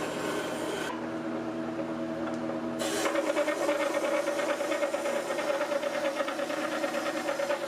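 Wet wheel grinder running with a steady motor hum. From about three seconds in, a steel planer knife is drawn across the wet whetstone with a continuous gritty rasp.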